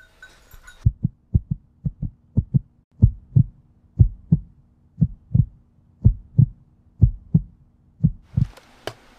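Heartbeat sound effect for a logo intro: pairs of low thuds, quick at first and then settling to about one beat a second, over a faint low drone. Near the end a hiss fades in, with one sharp click.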